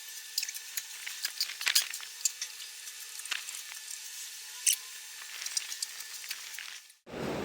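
Irregular small clicks and ticks of screws being unscrewed from the back panel of an LED display module and the loose parts handled. Near the end the sound cuts to a steady rushing noise.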